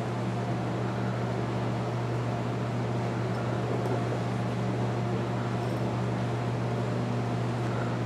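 Steady low mechanical hum with a constant hiss, unchanging throughout.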